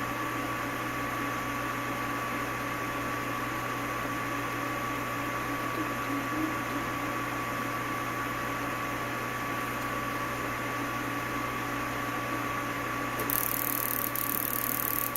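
Steady electrical and mechanical hum from a running HVAC control test board, a low hum with a thin high whine over it. About 13 seconds in a high hiss joins.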